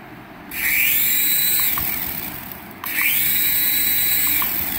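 Small toy RC helicopter's electric rotor motor spinning up twice, each time with a whine that rises and then holds steady, each run lasting about two seconds.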